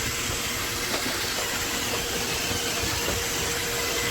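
Roomba robot vacuum running: a steady whirring motor noise with a thin, constant hum.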